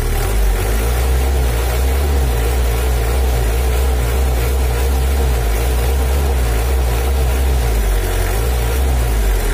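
Mitsubishi L300's 4D56 four-cylinder diesel engine running steadily, just after its injection pump has been adjusted; the mechanic judges the throttle response now crisp.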